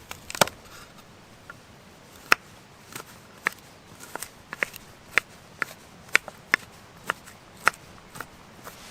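Knife cutting on a cutting board: a string of sharp, irregular taps, about one or two a second.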